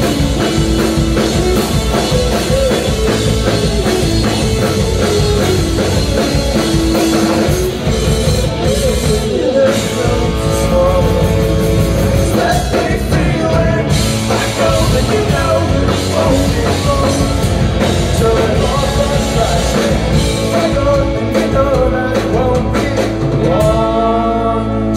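A rock band playing live: electric guitars, bass guitar and drum kit, with a man singing. Near the end the drums drop away and a held chord rings on.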